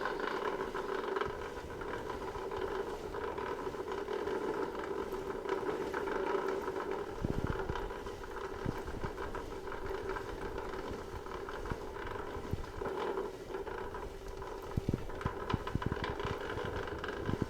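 Tacx Antares bike rollers spinning with a steady grating drone, which the owner puts down to worn ball bearings, a common fault on these rollers. A few low thumps come in irregularly from about seven seconds in.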